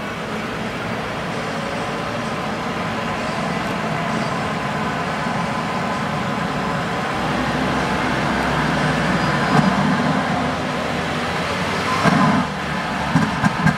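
Freshly rebuilt Toyota 7M-GTE turbocharged inline-six running steadily on one of its first starts, growing a little louder about halfway through, with a short louder burst near the end.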